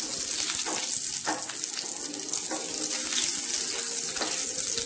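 Mustard seeds, urad dal and fenugreek seeds frying in hot sesame oil in a steel pan: a steady sizzle with a few sharp pops as the mustard seeds begin to splutter, the tempering stage of the chutney.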